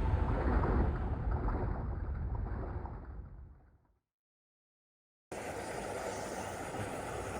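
Intro music fading out over about four seconds, a second of dead silence, then steady outdoor background noise starts abruptly.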